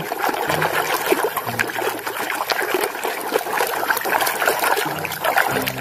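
Water trickling and splashing over a muddy toy truck as it is rinsed clean.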